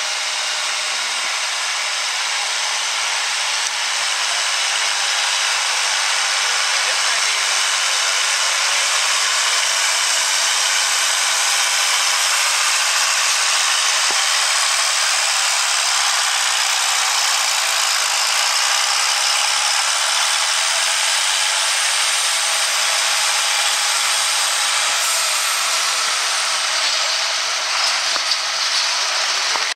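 John Deere farm stock tractor's diesel engine running flat out under load as it drags a weight-transfer pulling sled, a loud steady drone and hiss. Near the end a thin high whine falls in pitch.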